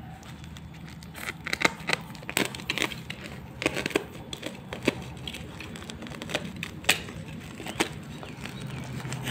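Black plastic wrapping of a parcel crinkling and crackling under handling hands, in irregular sharp crackles.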